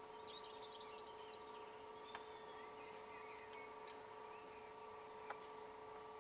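Faint birds chirping in short, scattered calls over a steady hum, with two soft clicks, one about two seconds in and one near the end.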